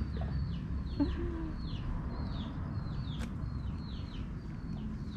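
A bird repeats a short, high, falling call about twice a second, over a steady low rumble.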